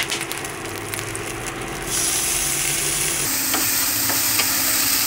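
Diced shrimp frying in a hot wok. The sizzle jumps louder about two seconds in as the shrimp go into the oil, and a spatula clicks against the wok while stirring in the second half.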